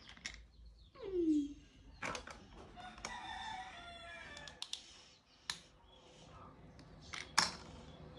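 Plastic Lego bricks clicking and tapping against each other and a metal tin tray, a few sharp separate clicks, the loudest near the end. A short falling voice sound comes about a second in, and a rooster crows faintly in the background around the middle.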